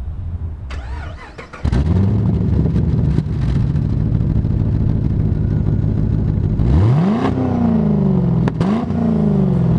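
Holden VE Commodore SSV's 6-litre V8 running through an X-Force exhaust, which the owner believes is a muffler delete. It comes in loudly about a second and a half in and idles steadily, then is revved twice near the end, each rev rising sharply and dropping back.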